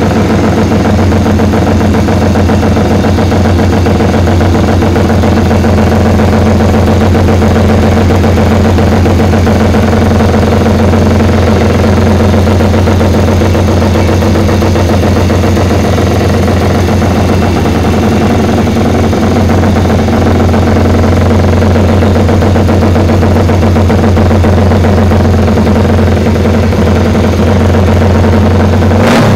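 1968 Paton GP 500 racing motorcycle's four-stroke twin-cylinder engine idling loudly and steadily through its open megaphone exhausts while warming up.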